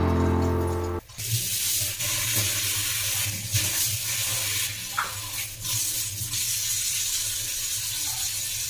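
Background music for about the first second, then a kitchen tap running steadily into a stainless steel sink, with a few light clinks of dishes being washed.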